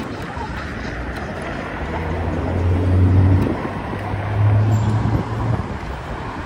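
Wind and road noise from riding an e-bike along a city street, with a low steady hum that swells twice, about two seconds in and again about four and a half seconds in.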